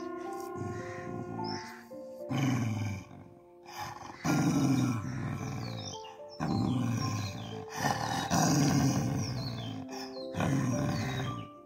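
Dog growling low in repeated rumbles, each a second or two long, food-guarding over its rotis. Background music with sustained notes plays throughout.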